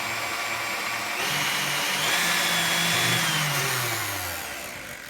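KitchenAid heavy-duty stand mixer's motor running smoothly without any rattle, its loose rear nuts now tightened. It steps up louder about a second in, then winds down with a falling pitch over the last second and a half.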